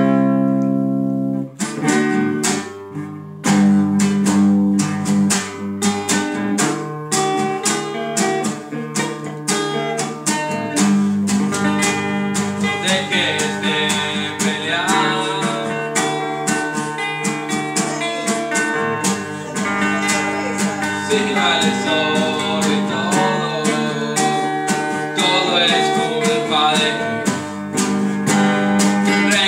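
Nylon-string acoustic guitar strummed, with an electric guitar playing along in a live rock song. A chord rings at the start, then steady strumming runs on.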